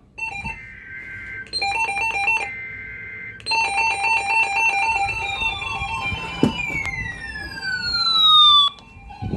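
Electronic alert tones from weather-alert receivers sounding for a severe thunderstorm watch: rapid beeping in two pitches, then falling electronic sweeps that grow louder and cut off sharply near the end.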